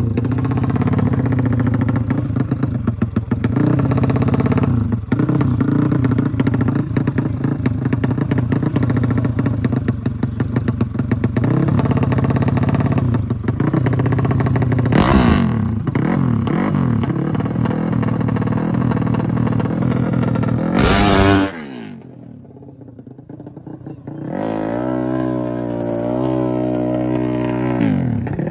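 Drag-racing motorcycle engines running and revving hard, with a short sharp rev about 15 seconds in. About 21 seconds in the sound drops off suddenly, then a single engine comes back held at revs that waver up and down.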